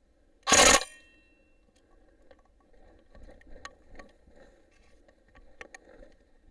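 A single loud, sharp shot from the scoped rifle about half a second in, followed by faint rustling and a few small clicks.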